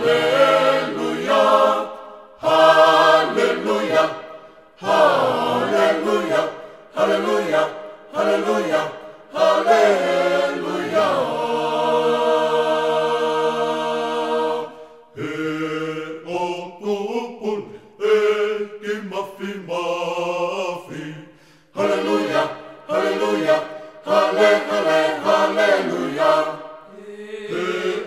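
Tongan a cappella gospel choir singing in several-part harmony without instruments, in short phrases with a long held chord near the middle.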